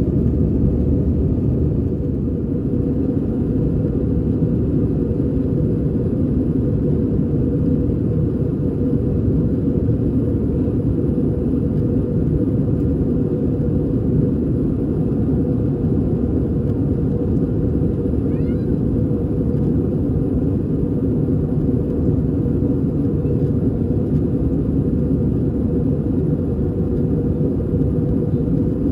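Airbus A320 cabin noise in the climb: the steady low rumble of the engines and rushing air, heard from a window seat over the wing.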